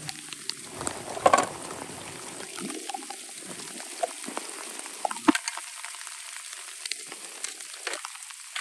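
Gloved hands scraping and scooping loose soil: a steady crackling rustle broken by short clicks, with sharp knocks about a second in and again about five seconds in.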